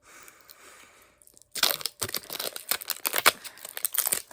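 A mystery blind bag's packaging being torn open and crinkled, faint rustling at first, then dense crackling from about a second and a half in.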